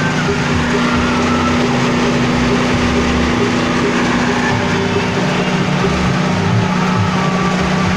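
Horizontal pellet mill and FFC 23 grain grinder running steadily under power: a loud, even machine drone with a steady hum.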